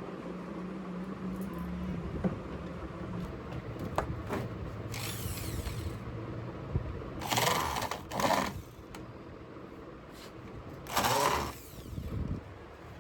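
Factory machinery running with a steady hum, broken three times by short loud bursts of a power tool.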